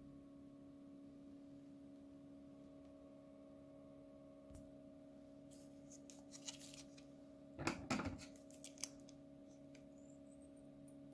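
Thin plastic piping bag full of slime crinkling as it is handled, then scissors snipping through the bag's plastic tip, a few crisp cuts a little past the middle, over a faint steady hum.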